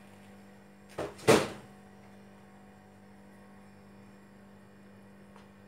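Two quick clanks of kitchen utensils against cookware about a second in, the second much louder and briefly ringing, over a steady low hum.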